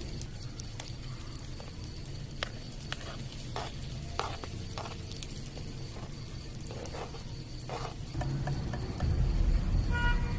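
Eggs cooking in a frying pan for a French omelette, with scattered clicks of a utensil against the pan as they are stirred.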